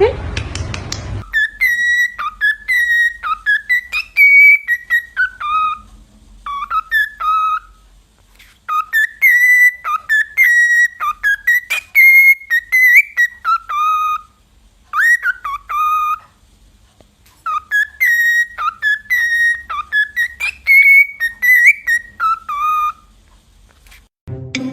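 A parrot whistling a short tune of sliding notes, running through the melody about three times with short pauses between phrases.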